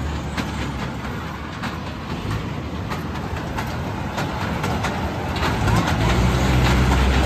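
Children's ride-on toy train running on its circular track at a fair: a steady low rumble with frequent short clicks from the wheels on the rails. The rumble grows louder near the end as the locomotive comes close.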